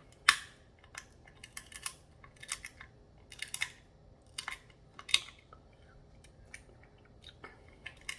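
Close-miked eating sounds at a seafood meal: an irregular series of sharp cracks and clicks, loudest about a third of a second in and again about five seconds in.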